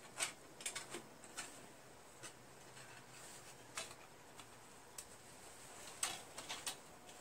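Faint, irregular light clicks and ticks, about ten over several seconds, as a spare Tecumseh screw-in dipstick is worked into the dipstick tube of a snowblower engine by hand.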